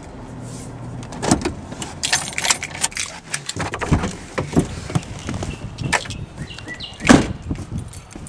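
Car engine idling briefly and switched off about a second in, then keys jangling and the clicks and knocks of the car door being opened and someone climbing out, with the door shut hard about seven seconds in. A few bird chirps near the end.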